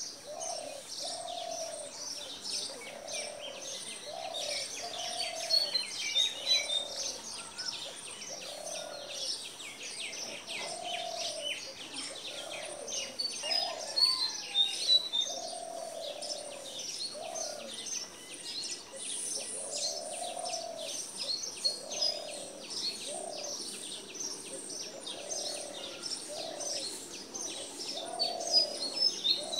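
Small songbirds chirping busily and continuously, with a lower cooing call repeated about every second and a half.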